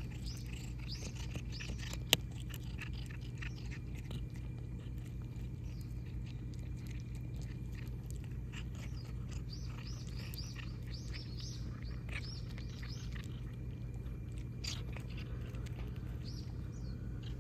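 A cat chewing dry kibble from a hand: many small, quick crunches and licks, with one sharp click about two seconds in.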